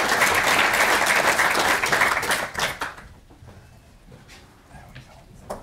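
Audience applauding, dense clapping that dies away about three seconds in. A few light knocks follow in the quieter room, one near the end.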